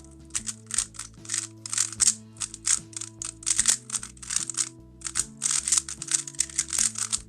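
A QiYi WuWei M plastic 3x3 speedcube clattering as it is turned quickly in bursts of rapid clicks. Background music plays under it.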